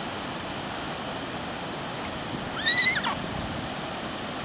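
A rat squealing once as a wolfdog catches it: a single shrill cry about two and a half seconds in that rises, holds for about half a second and then drops away, over steady wind noise.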